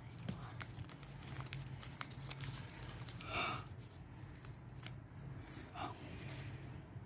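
A strip of paper being rolled tightly between the fingers into a thin tube: faint crackles and rustles of the paper, with one louder rustle about halfway through. A steady low hum runs underneath.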